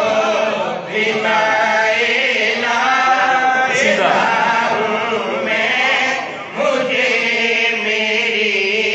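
A man's voice chanting verse melodically through a microphone and loudspeakers, in long, wavering, drawn-out phrases. It breaks for a breath about a second in and again at about six and a half seconds.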